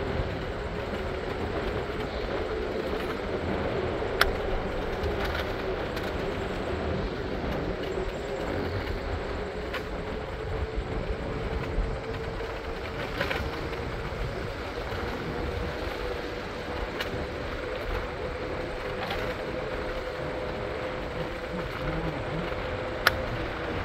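Train car running along the track: a steady rumble with one tone slowly climbing in pitch, and sharp clicks about four seconds in and near the end.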